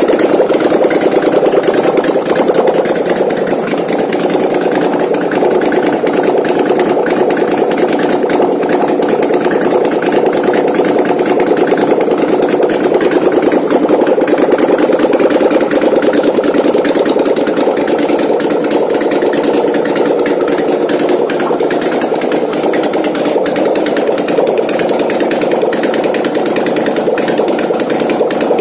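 Chinese-made 800cc V-twin ATV engine, converted from fuel injection to a Harley-Davidson carburettor, idling steadily with a slight swell in engine speed midway.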